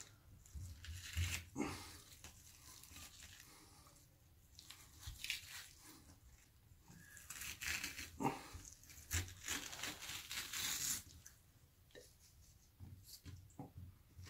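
Knife slicing raw sole on a wooden cutting board as the fillet is cut away from the bones: irregular strokes, busiest about seven to eleven seconds in.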